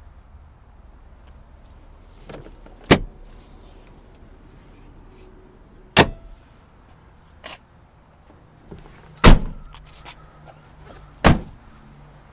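Four loud clunks a few seconds apart, with a few lighter knocks between them, from parts of a pickup's cab being shut and put back: the rear seat bottoms, the storage compartment under them, and the doors.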